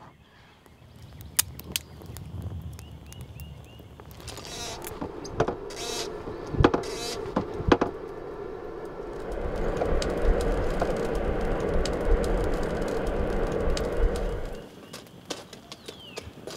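Forge fire being started: a few short puffs of breath blown into a smouldering tinder bundle, with scattered crackling clicks. Then about five seconds of steady rushing air and fire as the leather bellows blow into the forge, cutting off suddenly, followed by the fire crackling.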